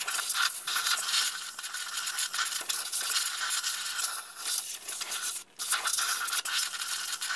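Compressed air blasting from a long blow-gun wand into a trash pump's rusty pump housing, a loud steady hiss that breaks off briefly about five and a half seconds in.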